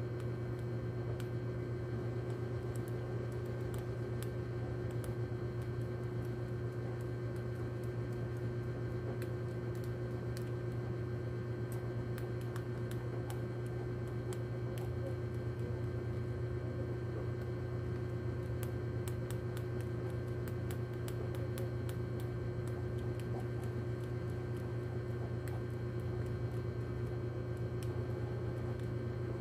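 Steady low electrical hum with a fainter higher tone above it, and scattered faint clicks that come more often in the second half.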